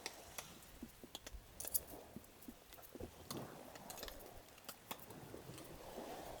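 Someone chewing food close to the microphone, with scattered small clicks and taps.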